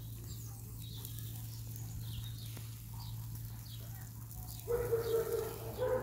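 Faint small birds chirping over a steady low hum. About three-quarters of the way in, a dog gives a sudden, drawn-out whine on one even pitch, lasting about a second.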